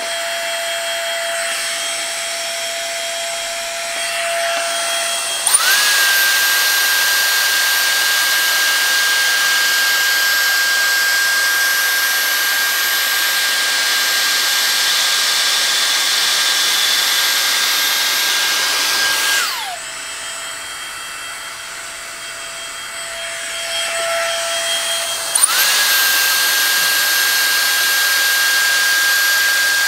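Dyson Airstrait hair straightener running in dry mode: a steady rush of air with a high motor whine. About five seconds in it steps up to a higher pitch and gets louder, drops back to the lower speed at about twenty seconds, and steps up again about five seconds later.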